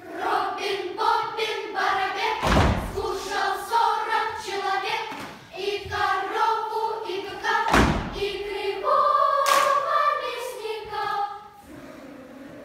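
Children's choir singing a lively song in unison, with two heavy thumps about five seconds apart. The singing stops shortly before the end.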